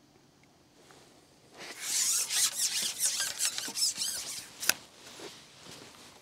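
Carbon fishing pole being shipped back after a hooked fish, its sections sliding with a rasping hiss for about three seconds from about a second and a half in, with a single sharp click near the end.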